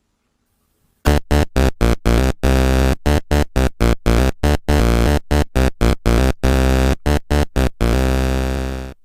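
Electronic synthesizer music with a fast, choppy beat, starting about a second in after a short silence and fading out near the end.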